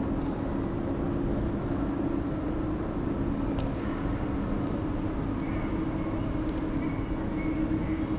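Steady low mechanical hum of a large, near-empty terminal hall, with two even hum tones under a broad rumble, typical of building ventilation and machinery.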